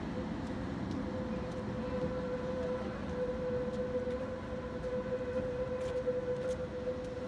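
Steady high whine that sets in at the start and holds unchanged, from a tram on the street, over a low rumble of city traffic.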